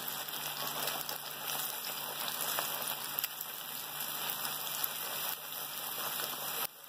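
Beaten eggs sizzling steadily in hot oil in a heavy-bottomed kadai on high flame, with a wooden spatula stirring and scrambling them and now and then a light scrape against the pan.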